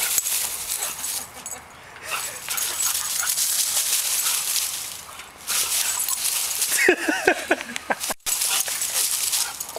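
An English bulldog thrashing around in dry grass and a low bush after her ball, with steady rustling of dry leaves and twigs. A short high cry comes about seven seconds in.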